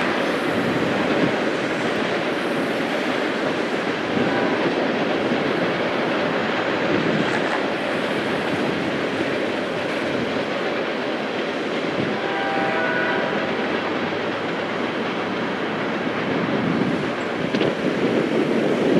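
Freight cars of a long train rolling steadily over a steel trestle bridge, a continuous rumble of wheels on rail with some clickety-clack. A distant train horn sounds briefly about four seconds in and again for about a second and a half around twelve seconds in.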